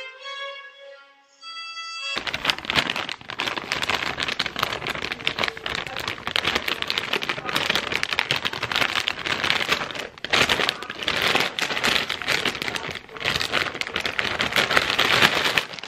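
Brief violin-like music, then from about two seconds in a plastic snack bag of ginger snap cookies crinkling and crackling loudly and continuously as it is handled and pulled open.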